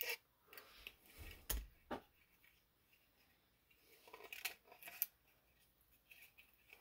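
Faint, scattered clicks and taps of a small metal hand tool and plastic model-locomotive parts being handled, in two clusters: one in the first two seconds and another about four to five seconds in.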